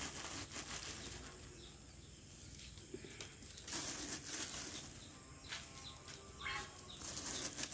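Short rustles and gritty scattering as rock salt is sprinkled by hand from a plastic bag onto cattle feed in open plastic tubs, a few bursts a second or so apart.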